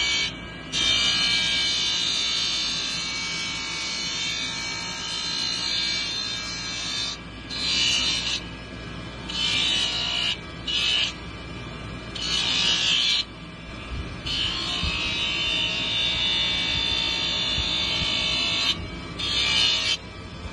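Bench grinder's abrasive wheel grinding the edge of an aluminum horseshoe and its fitted 3D pad, pressed on in repeated passes: a loud hissing grind each time the work meets the wheel, some passes a second long and two lasting several seconds. The grinder motor runs on steadily in the gaps.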